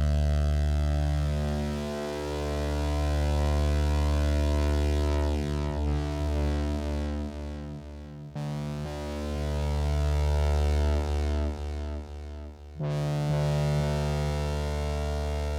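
Low, sustained synthesizer drone from Arturia's Modular V3 software synth, one low note with a rich stack of overtones. It thins out and stutters twice, then comes back full and suddenly about thirteen seconds in.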